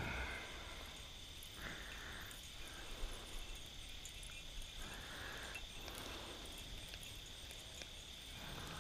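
Steady high-pitched trill of night insects, with a few soft rustles in the grass and brush.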